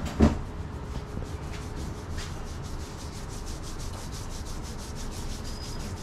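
Fingers rubbing quickly and rhythmically through oiled hair and scalp during a head massage, several scratchy strokes a second. A sharp knock just after the start is the loudest sound.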